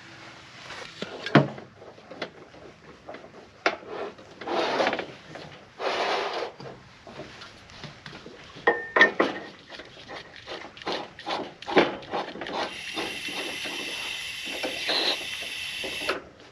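Clicks, knocks and scrapes of a small green propane cylinder being taken from a plastic tote and set against a Coleman portable grill's regulator. Near the end comes a steady hiss for about three seconds that cuts off suddenly: propane escaping while the cylinder is threaded onto the regulator.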